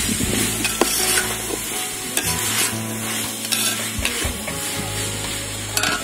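A long slotted metal spoon stirring vegetables frying in a large metal pot, scraping against the pot a few times, over a steady sizzle.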